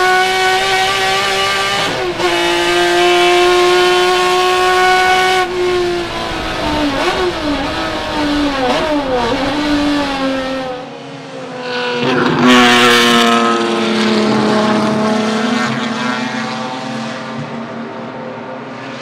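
Ford-Cosworth GAA naturally aspirated V6 of a Ford Capri 3100 RS race car at high revs, with a quick upshift about two seconds in. From about six seconds it drops through the gears with throttle blips on each downshift. Near the end the car is heard from trackside, its engine note sinking slowly as it pulls away.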